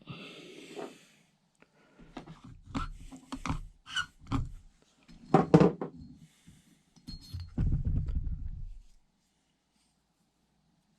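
Hand lapping of a valve into its seat in a Honda Z50 cylinder head, a screwdriver turning the valve in grinding compound: irregular clicks, knocks and scraping, with a low rubbing about two thirds of the way in, then quiet near the end.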